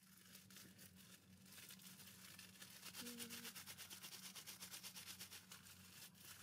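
Crinkling rustle of something small being rubbed and worked between the hands: a fast run of tiny crackles.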